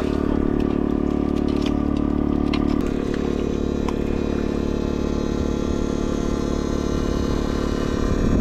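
Electrofishing machine (a 22-FET inverter kích cá unit) buzzing steadily with a layered electrical hum while it shocks the water. A few sharp crackles come between about two and four seconds in.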